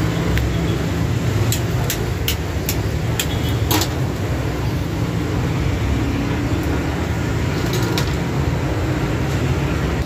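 A steady low motor rumble throughout, with a string of sharp metal clicks in the first four seconds and one more near eight seconds, from pliers working the boot clamp on a CV drive axle.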